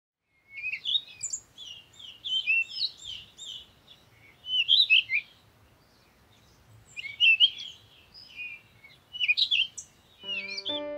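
Small birds chirping and twittering in quick clusters of high notes, with short pauses between bursts. Soft keyboard music comes in near the end.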